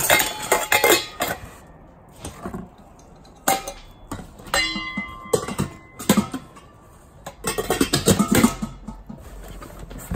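Stainless steel pots and bowls clanking and clinking as kitchenware is handled in a cardboard box, with one piece ringing for about a second near the middle.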